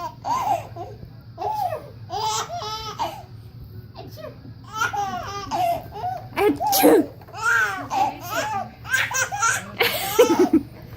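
Baby boy laughing hard at sneezes, in repeated bursts of giggles and belly laughs.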